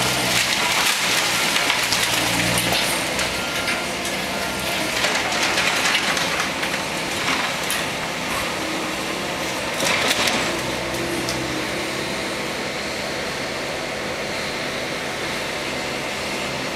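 Demolition machine at work: its engine hums steadily while debris crunches and crackles, with the loudest crunching about five and ten seconds in, over a constant hiss.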